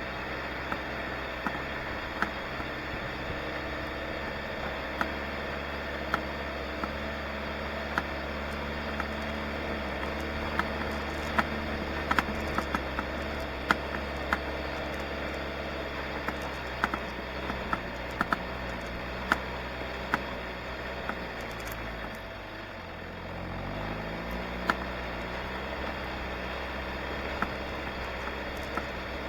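A 4x4's engine running steadily, with frequent sharp clicks and knocks over it. About two-thirds of the way through the engine note drops, then rises in pitch again.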